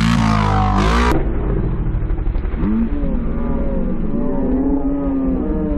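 ATV engine revving hard under load on a steep dirt climb, its pitch rising and falling again and again as the throttle is worked.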